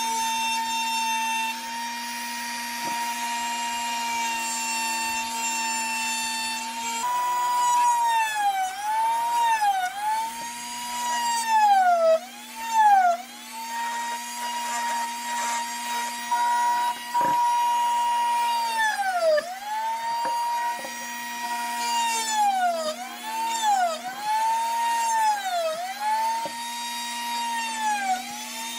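Dremel rotary tool on a flex shaft running with a carving burr, a steady high-pitched whine. From about a quarter of the way in, the pitch repeatedly dips and recovers as the burr is pressed into the wood and lifted off.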